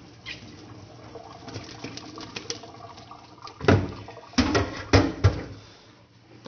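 Raw whole chicken being handled over a stainless steel kitchen sink after rinsing: water dripping and splashing, with a few loud wet slaps between about three and a half and five and a half seconds in as the chicken is dropped into the sink.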